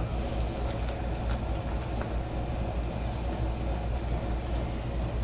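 A steady low rumble, like a motor or engine running, with a few faint clicks in the first two seconds.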